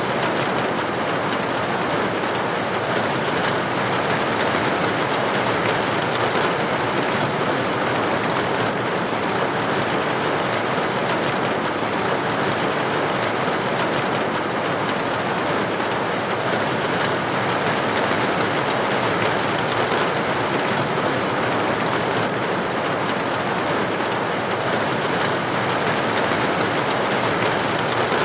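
Steady rain on a window pane: an even, unbroken hiss of drops with no let-up.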